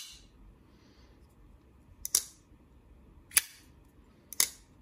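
Spyderco Shaman folding knife with micarta scales and bronze hardware, its blade flicked open and shut: four sharp metallic snaps about a second apart, two of them doubled, each with a brief ring.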